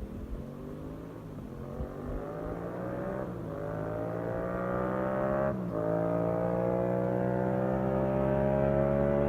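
Yamaha FZ-07's parallel-twin engine through a Yoshimura exhaust, accelerating hard under full throttle. The pitch climbs steadily and drops at each upshift, about three seconds in, about five and a half seconds in and near the end, growing louder as it goes.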